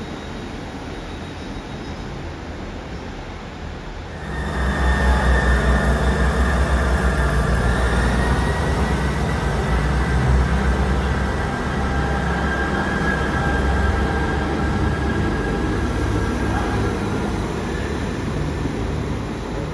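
A train running past close by: the sound jumps up about four seconds in, a heavy low rumble with several steady high-pitched tones over it, easing off a little near the end.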